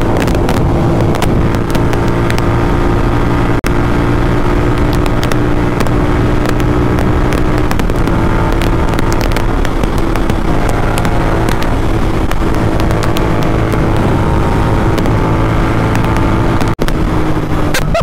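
Royal Enfield Continental GT650's 648 cc parallel-twin engine, fitted with a Red Rooster Performance exhaust, pulling steadily at speed on the open road, its pitch holding fairly even, with wind buffeting the microphone.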